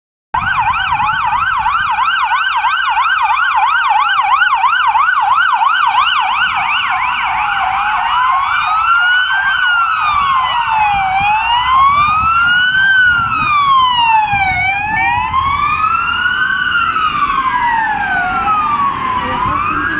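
Electronic sirens on motorcade escort cars with blue lights. They sound a fast yelp, about three rises a second, for the first seven seconds or so, then switch to a slow rising-and-falling wail. A second siren's wail overlaps out of step later on.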